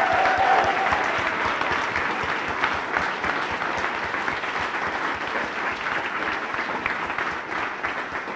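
An audience applauding, with a few cheers near the start; the clapping slowly fades.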